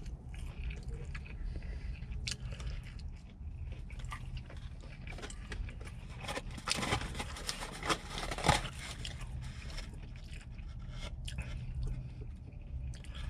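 A person chewing a mouthful of fried chicken sandwich close to the microphone: irregular crunching and crackling from heavily breaded chicken tenders, loudest around the middle, over a low steady hum.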